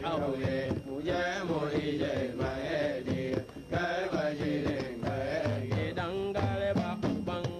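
Hausa praise song: a man singing a chanting melody in Hausa, accompanied by hand drums beating steadily.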